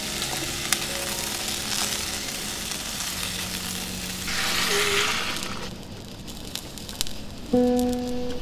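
Potato and carrot chunks sizzling on onions in an enamelled cast-iron pot and being stirred with a spatula, with a louder stretch of sizzling about halfway through and a few sharp clicks. Soft plucked guitar music comes in near the end.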